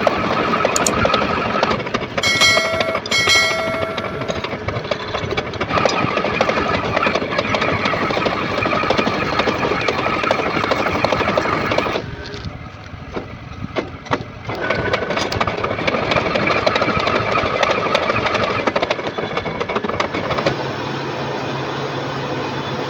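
Metal lathe running while a tool cuts the workpiece: a loud, steady whine of machining. Two brief high squeals come a couple of seconds in. The noise drops for about two seconds around halfway, and near the end it settles into a smoother low hum.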